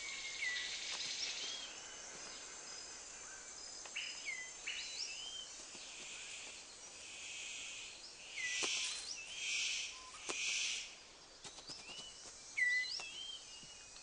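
Rainforest ambience: many short, curved whistled bird calls repeating over a steady insect hiss, with three brief rustling swishes a little past the middle.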